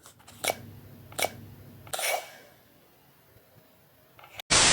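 A few sharp plastic clicks and knocks, about three in the first two seconds, as foam darts are pushed into a toy dart blaster. Near the end a sudden loud hiss cuts in abruptly.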